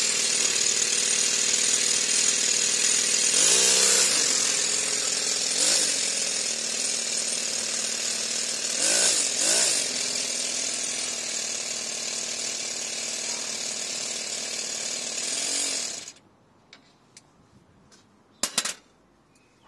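Toyan nitro model engine in a 15-inch gauge Wickham trolley running fast and steady, revved briefly up and back down a few times, then stopping abruptly about 16 seconds in. A couple of sharp clicks follow near the end.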